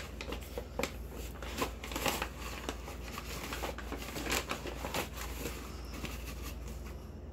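Paper flour bag rustling and crinkling as a measuring cup is dug into the flour, in irregular crackles that thin out about five and a half seconds in.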